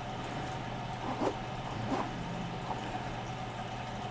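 Steady low hum with a faint tone in it, with a few soft rustling and zipper sounds as a fabric shoulder bag is opened by hand.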